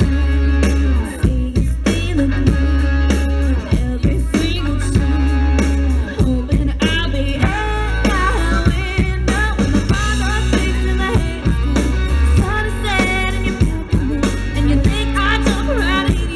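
Live amplified country song: a woman singing into a microphone, backed by a band with drum kit and guitar.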